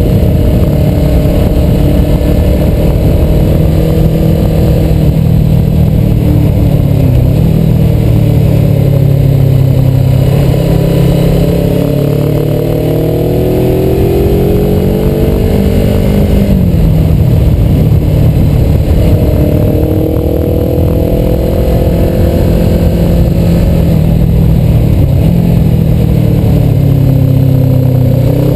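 Suzuki motorcycle engine roar heard from the bike, under way through a run of bends, its note falling several times as the throttle eases or the gear changes and then climbing again as it pulls out. Wind noise runs under it.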